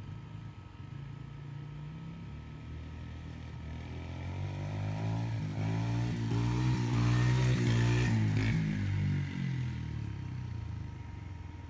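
Small dirt bike engine running and revving as it is ridden closer, growing louder to a peak about seven to eight seconds in, then dropping away as it passes.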